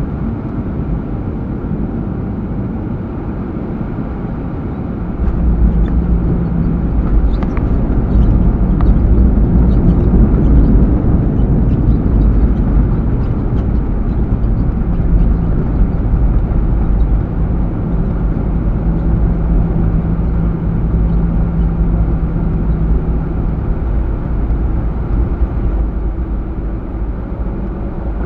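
Airbus A320 landing, heard from the cabin over the wing: the steady rumble of the approach turns sharply louder and deeper about five seconds in, as the aircraft touches down and brakes on the runway with its ground spoilers raised. The cabin rattles for a few seconds after, and the roll-out rumble eases somewhat near the end.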